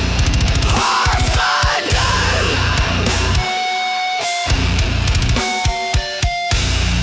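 Heavy metal music: an instrumental passage with distorted guitars, bass and drum kit, with no singing.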